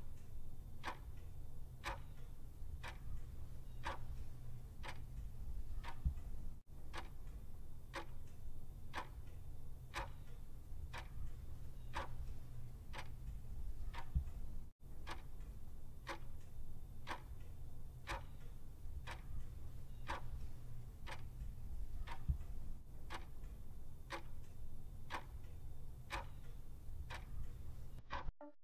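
Clock-style ticking about once a second, a countdown timer sound effect marking off the seconds, over a faint steady low hum; the ticking stops near the end.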